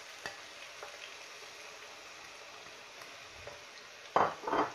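Sliced onions sizzling in a little hot oil in a large non-stick pot: a steady hiss with a few small crackles. Two short, louder sounds come near the end.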